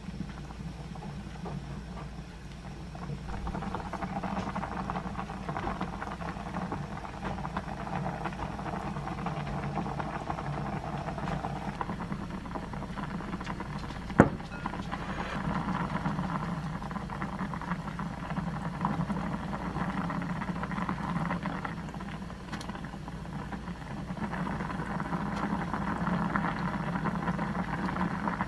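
Spicy red sujebi broth at a rolling boil in a pot on a gas stove, a steady crackling bubbling. There is a single sharp knock about fourteen seconds in.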